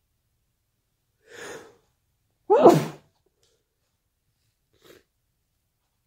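A person's sharp intake of breath, then a single loud sneeze about two and a half seconds in, falling in pitch as it goes, and a brief faint breath near the end.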